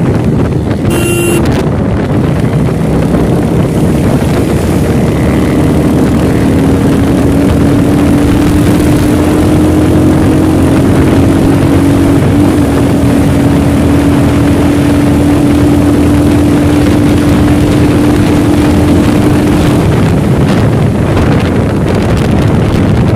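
Royal Enfield Hunter 350's single-cylinder engine running steadily at riding speed, mixed with loud wind rush on the microphone. A brief beep sounds about a second in.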